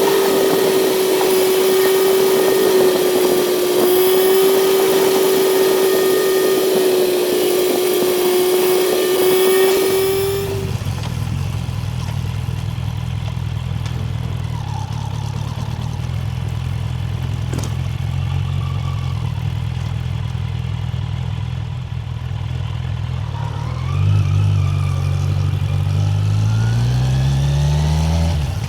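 A steady high-pitched whine, then it cuts suddenly about ten seconds in to a Kawasaki Z900 inline-four engine running low, which revs up in several rising sweeps near the end.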